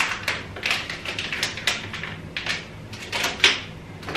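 Plastic packaging crinkling in irregular crackles as it is handled, with a louder crackle about three and a half seconds in.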